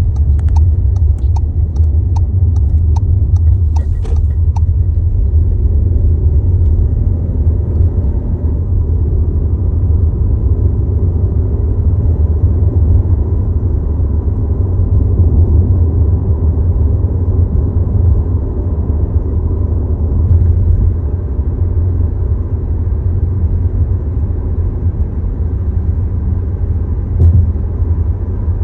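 Steady low rumbling vibration in a 2022 Volkswagen Tiguan SE R-Line, the vibration noise the owner links to the start-stop system being active. A run of quick light ticks sounds over it for the first few seconds.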